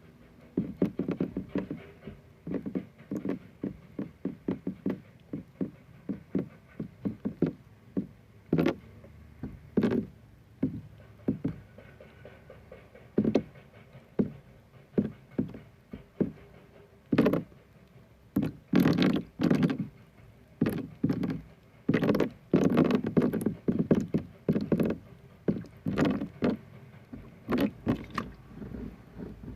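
Irregular close-up tapping and knocking on objects: many short taps in quick, uneven succession, louder and denser in the second half.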